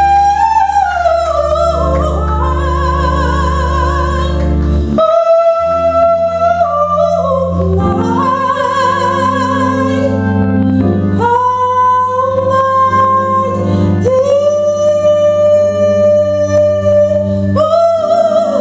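A solo singer holds long, wavering notes into a microphone, sliding between pitches, over sustained keyboard accompaniment. The accompaniment drops out briefly about five seconds in.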